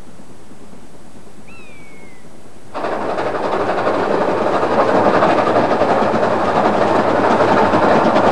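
A single falling bird call over a faint hiss. Then, about three seconds in, the sound cuts suddenly to a steam locomotive, a Stanier Black Five 4-6-0, working its passenger train and growing louder as it passes.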